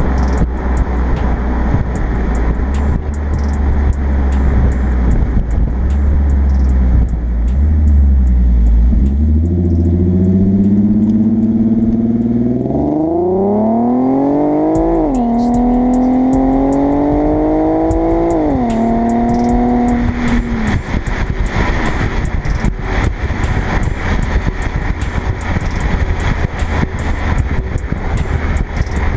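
Infiniti Q50 Hybrid's 3.5-litre V6 heard at the tailpipe through a newly fitted aftermarket axle-back exhaust while driving. Between about 10 and 20 seconds in, the exhaust note climbs under acceleration and drops sharply at two upshifts. Before and after that, a steady low rumble of wind and road noise on the exterior-mounted camera dominates.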